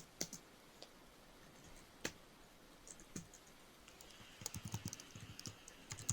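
Faint typing on a computer keyboard: a few separate key clicks, then a quick run of keystrokes starting about four and a half seconds in.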